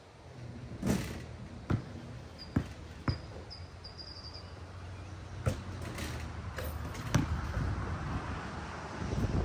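Basketballs bouncing on a court: a handful of separate sharp thuds at irregular spacing, with a short run of high squeaks in the middle.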